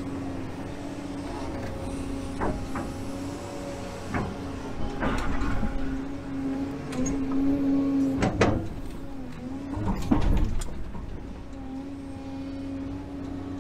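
Excavator diesel engine running steadily, heard from inside the cab as the bucket digs into dirt, with several clanks and knocks, the loudest about ten seconds in. The engine note wavers during the heaviest digging.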